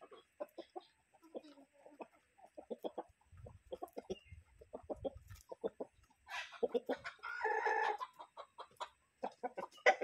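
A flock of free-range chickens clucking, many short clucks one after another. About six seconds in, one bird gives a louder, drawn-out call lasting nearly two seconds.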